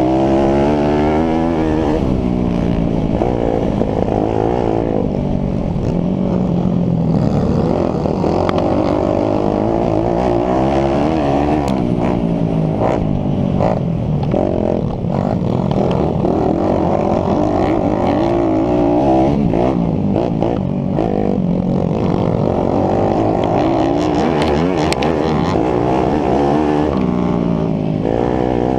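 YCF SP3 pit bike's single-cylinder four-stroke engine, heard close up under hard riding, revving up and dropping back again and again as it pulls through the gears on a dirt track. A few sharp knocks come through as the bike hits ruts.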